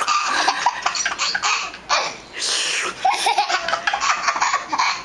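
A one-year-old baby laughing hard in runs of quick, short bursts, with a brief lull about two seconds in before the laughter picks up again.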